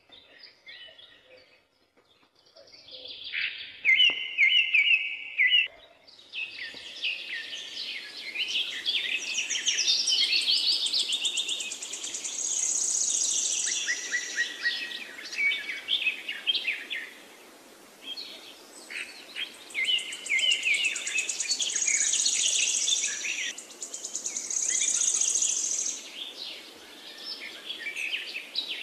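Several songbirds singing and chirping together, in dense overlapping spells with short lulls, over a faint steady background hiss. It begins sparse and quiet, and the full chorus comes in a few seconds in.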